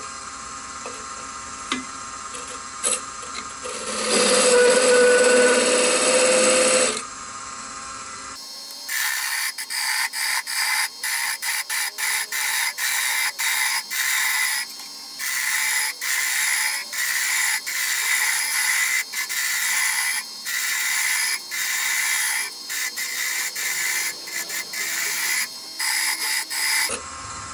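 Wood lathe with a turning tool cutting into a spinning wooden hammer-handle blank. First a parting tool cuts a sizing groove, loudest for a few seconds around the middle of the first part with a steady hum under it. Then, after an abrupt change, a hissy shaving sound comes in even strokes with short gaps, about one a second, as the handle is shaped.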